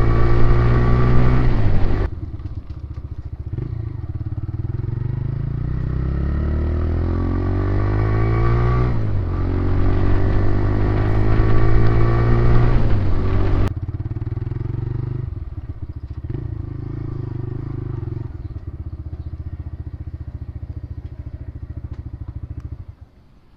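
New TVS Raider 125's single-cylinder engine running. It is loud at first and drops about two seconds in, then climbs in pitch twice as it revs up. About halfway through it changes abruptly to a steady, lower run, which stops near the end.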